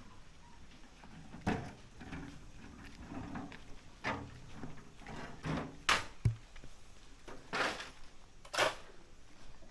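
Several short, sharp knocks or scrapes at irregular intervals, a second or two apart.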